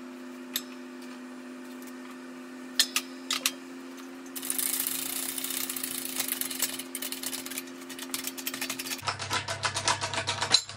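Hydraulic shop press at work pushing a large bearing out of a pulley: a few sharp metal clicks as the tooling is set, a stretch of hissing and rubbing, then a fast run of clicks ending in a sharp metallic bang at the very end, as the bearing breaks free.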